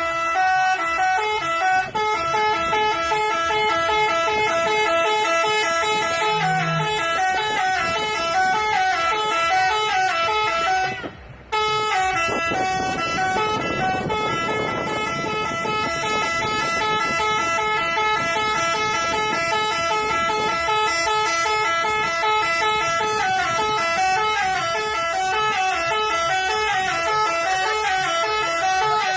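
Bus "telolet" musical air horn playing a tune: several horn tones at once, stepping up and down through a melody, with a short break about eleven seconds in.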